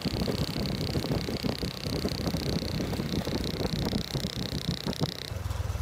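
Small motorbike engines running while riding along a road, with road and wind rumble and a steady high-pitched buzz above them. Near the end the sound changes abruptly to a steadier low engine hum.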